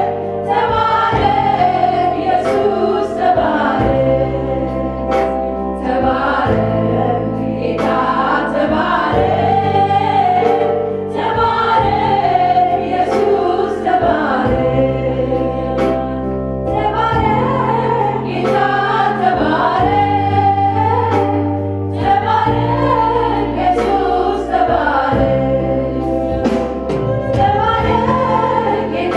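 A woman sings an Amharic worship song (mezmur) into a microphone, with choir voices and instrumental backing. Sustained bass notes change every couple of seconds beneath the singing.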